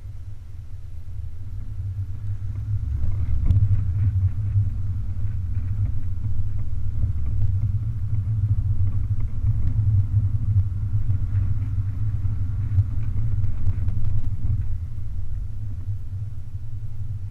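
Open-top BMW 420 convertible driving at low speed: a steady low rumble of the car's running and the air around the open cabin, growing louder over the first few seconds and then holding.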